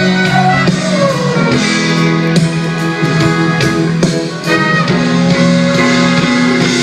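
Live pop band playing an instrumental passage with a steady beat, no singing.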